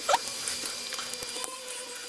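Small clicks and scrapes of metal and plastic parts as a Märklin model locomotive chassis is handled and its old reversing switch worked loose, with a short squeak just after the start.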